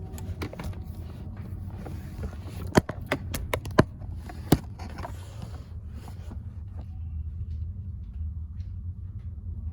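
Handling and movement noise: several sharp clicks and knocks about three to four and a half seconds in, over a steady low rumble.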